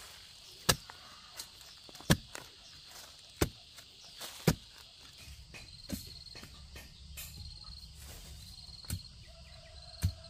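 A bamboo digging pole is stabbed repeatedly into dry, leafy soil to dig a post hole, giving about eight sharp thuds a second or so apart. Crickets chirp steadily behind it, with one pulsing call joining about halfway through.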